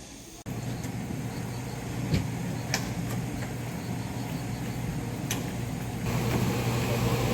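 Small tourist forest train running, heard from on board: a steady low engine hum over a rumble, with a few sharp clicks, growing louder about six seconds in.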